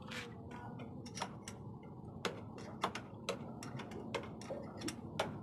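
Irregular sharp metallic clicks and taps, some fifteen of them, from a hand tool working on a Bosch inline diesel injection pump clamped in a vise, over a steady low background noise.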